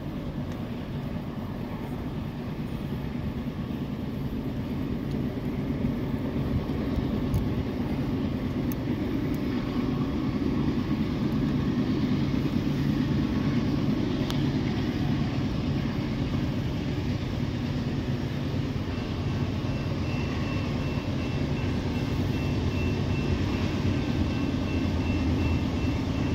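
Approaching train: the low, steady rumble of its locomotive engines growing gradually louder. A faint, steady high tone joins about two-thirds of the way through.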